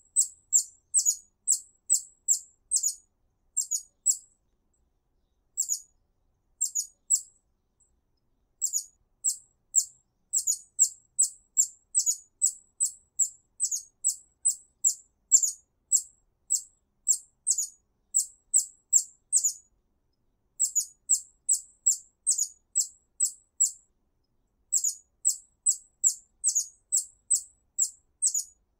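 Hummingbird chip calls: short, very high-pitched, sharp notes repeated about twice a second in runs, with a few brief pauses between runs.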